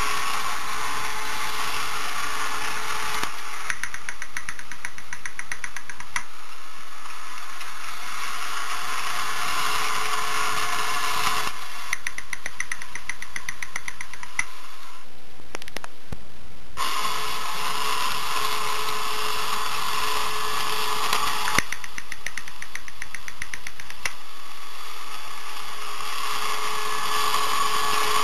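Small electric motor and gearing of a battery-operated tin toy astronaut on a wired remote, whirring steadily. Three times it breaks into a stretch of rapid, even clicking, and it briefly drops away about fifteen seconds in.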